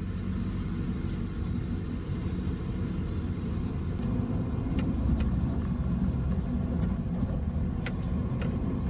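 Steady low engine and road rumble of a small camper van, heard from inside the cab while driving, with a few faint clicks.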